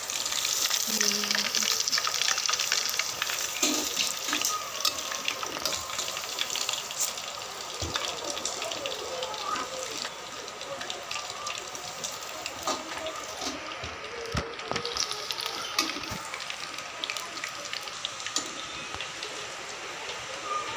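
Hot cooking oil sizzling and crackling, with dense, irregular pops, busiest in the first few seconds.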